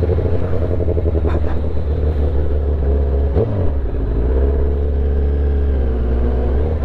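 Kawasaki ZX-10R inline-four engine running under way at steady revs over a low wind rumble. About halfway through, its pitch dips briefly and climbs back, as with a gear change or a roll-off and reapplication of throttle.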